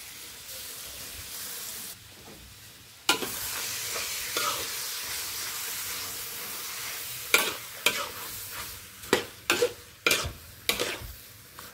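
Squid pieces sizzling in a hot wok with curry paste, the sizzle jumping sharply louder about three seconds in. From about seven seconds a metal spatula scrapes and knocks against the wok several times as the squid is stirred.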